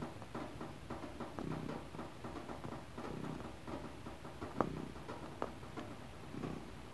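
Domestic cat purring, the rumble swelling in a slow rhythm about every second and a half, with soft ticks and two sharp clicks a little past halfway.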